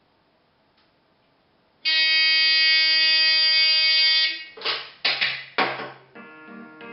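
Modified rotary telephone ringing: one steady buzzing ring of about two and a half seconds that starts about two seconds in and cuts off suddenly. Then come a few knocks and clatter as the handset is lifted from the cradle, and faint music starts playing near the end.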